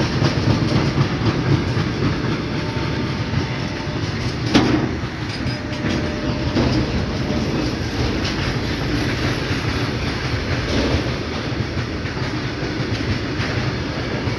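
Long python freight train (two freight rakes coupled together) of covered boxcar wagons passing close by: steel wheels clattering over the rail joints with a steady heavy rumble, and one louder knock about four and a half seconds in.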